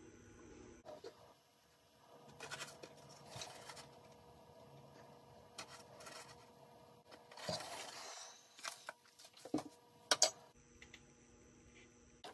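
Faint, scattered scraping and tapping of a small scoop against plastic cups as dry malt extract powder is scooped and weighed. There is a longer rustle of the powder about two-thirds of the way through and a few light clicks near the end.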